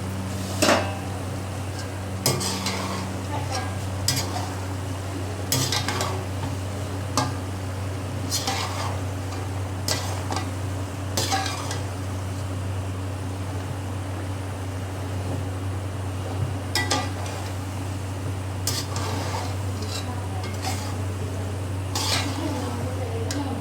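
A spoon stirring and folding boiled macaroni into keema and vegetables in a cooking pot, scraping and knocking against the pot every second or two, with a light sizzle and a steady low hum underneath.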